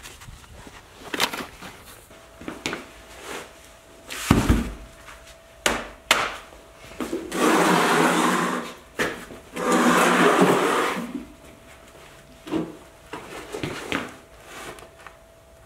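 Knocks and a heavy thud from a wooden stump stand and a forged anvil being handled and set in place. In the middle come two louder grating sounds, about a second and a half each.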